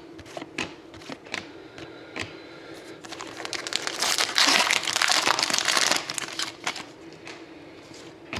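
Trading cards flicked and slid one after another, with sharp clicks, then a hockey card pack wrapper crinkling loudly as it is torn open, from about three to six seconds in, before the card clicks start again.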